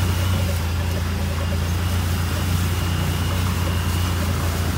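Off-road vehicle engine running at a steady low drone while driving along a trail.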